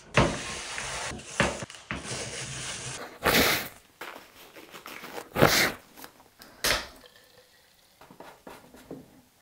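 Rustling handling noises as laces are pulled out of a track spike and nitrile gloves are put on, with a few short, louder swishes in the middle.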